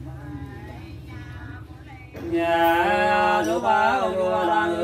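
Unaccompanied hát sli, Nùng folk singing, with voices holding long notes. It is faint at first and grows louder about two seconds in, where a second, lower voice joins.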